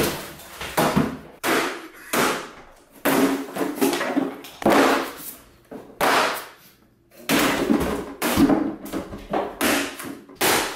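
Lightweight hollow-core white side tables being smashed: a rapid series of loud crashes and cracks as legs and tabletops are swung and slammed down, with a pause of about a second just past the middle.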